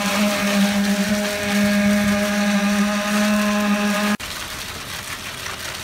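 A motor running at a steady speed with a steady, even-pitched hum, cutting off suddenly about four seconds in.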